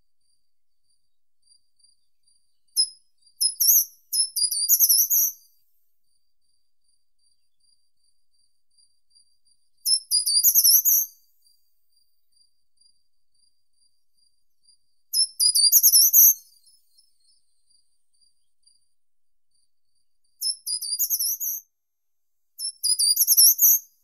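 Short-toed treecreeper singing: five short, high-pitched phrases of quick notes, roughly one every five seconds, the first a longer, broken run a few seconds in.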